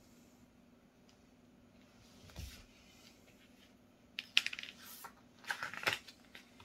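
Paper pages of a picture book being turned by hand: two quick bursts of rustling in the second half, after a soft thump about two seconds in.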